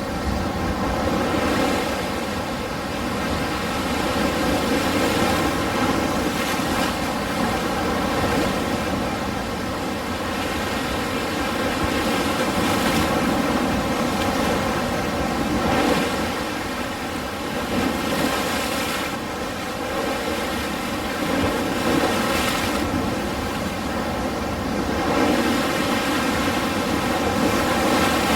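Ocean surf: waves washing in and drawing back in a continuous rush that swells and eases every few seconds.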